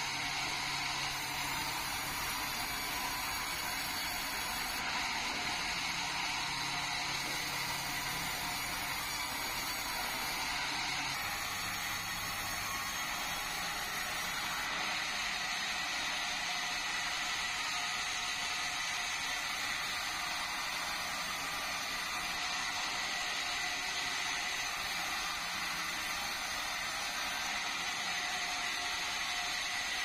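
Vertical band sawmill running steadily, a continuous mechanical drone with a steady high whine, as red meranti timber is fed through the blade. A low hum in it shifts in pitch about a third of the way through.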